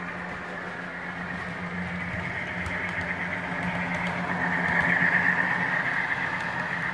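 Model diesel locomotive running on its track with its onboard sound playing a steady diesel engine note, swelling to its loudest about five seconds in as the train passes close, then easing.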